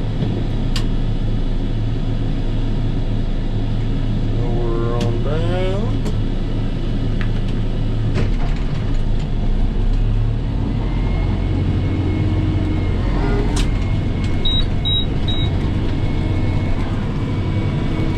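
Tractor engine running steadily under load, heard from inside the cab, driving a batwing rotary cutter through pasture grass. Three short high beeps sound near the end.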